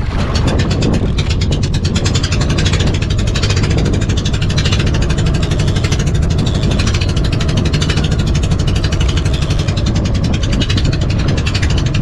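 Rapid, steady mechanical clicking over the low drone of a boat engine.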